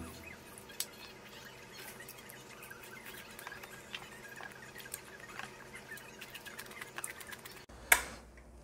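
Close-up eating sounds: many small scattered clicks and smacks of chewing and of a spoon and chopsticks against the dishes. One sharp, loud click near the end.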